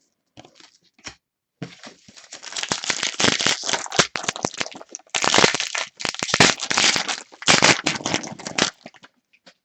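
Plastic wrapper of a trading-card pack being torn open and crinkled, a dense run of crackling and ripping that stops about a second before the end.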